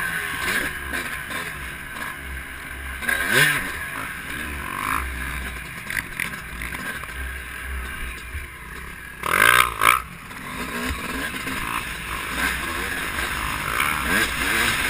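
Single-cylinder two-stroke engine of a 2005 Honda CR250R dirt bike revving up and down under way on a sandy track, with wind rushing over the microphone. The revs climb sharply about three seconds in and again near ten seconds; these are the loudest moments.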